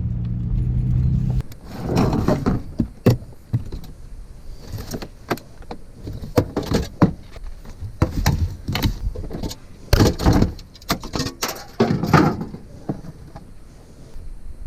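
A vehicle engine idling steadily, cut off abruptly about a second and a half in, followed by a string of irregular clatters, knocks and rustles.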